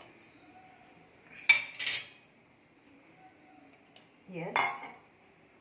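Steel kitchenware clinking: two sharp metallic clanks about half a second apart, each with a brief ring.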